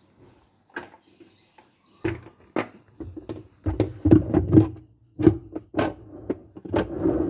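Irregular knocks and clatters of hard parts, about a dozen, some with a low thud, coming thickest in the middle of the stretch.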